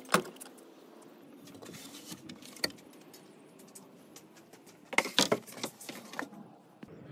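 Pickup truck tailgate latch released with a sharp clunk at the start. Then rustling handling noise as long wooden posts are carried, with a cluster of sharp knocks about five seconds in.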